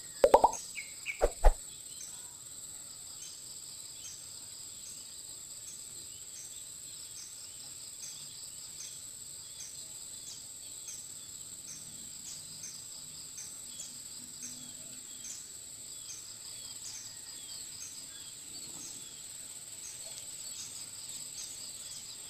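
Insects chirping in a steady, high-pitched trill with a regular pulse. A few sharp knocks come in the first second and a half.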